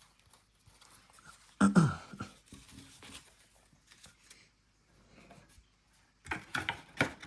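Trading cards and card packs being handled: faint rustling and light clicks, with a short, louder sound falling in pitch about one and a half seconds in and a quick run of sharp crinkling and clicks near the end.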